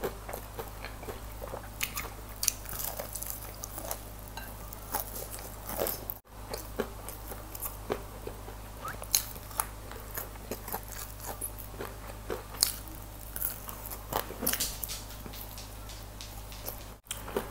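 Close-miked chewing and biting of crispy baked chicken wings, with irregular crunchy clicks as the meat is torn from the bone. The sound drops out for an instant twice.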